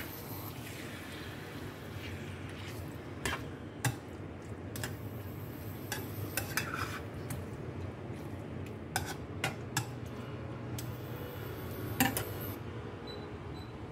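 Metal spoon stirring and turning chicken pieces with garlic and onion in a nonstick wok, the spoon clicking and scraping against the pan now and then over a steady sizzle. The loudest knock of spoon on pan comes near the end.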